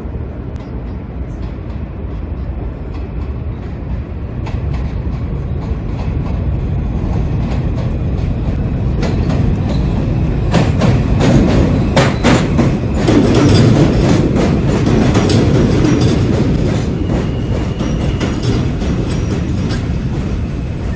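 A New York City subway train passing, its rumble building to a peak about halfway through, with quick clicking of wheels over rail joints at the loudest part, then easing off.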